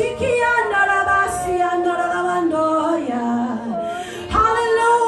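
Spontaneous worship singing: one voice holding long notes that slide from pitch to pitch, with no clear words. It dips briefly and comes back with a louder phrase near the end.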